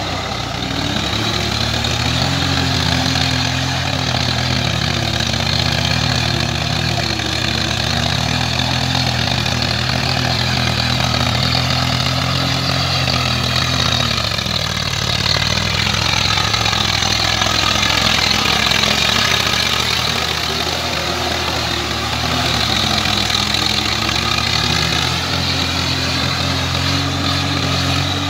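Swaraj 744 tractor's three-cylinder diesel engine running steadily under load, pulling a rotavator through a flooded paddy field. The engine note changes about halfway through and settles back near the end.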